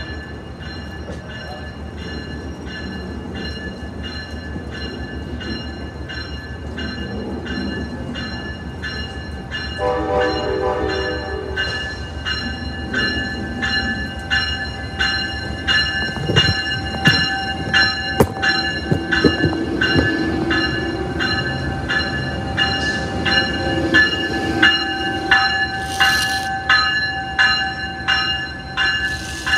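Amtrak ACS-64 electric locomotive ringing its bell in steady repeated strokes as it moves slowly through the station. A short horn blast sounds about a third of the way in, and a few clanks of the wheels over the track follow about halfway through.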